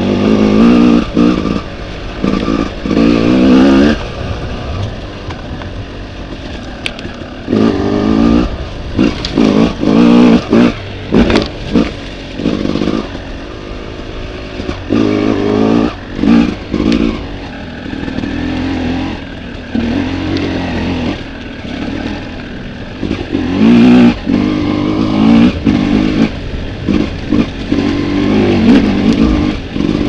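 Yamaha dirt bike engine under a rider's throttle, pulling hard in repeated bursts of a few seconds and dropping back to a lower, quieter note between them, with sharp knocks and rattles from riding over rough ground.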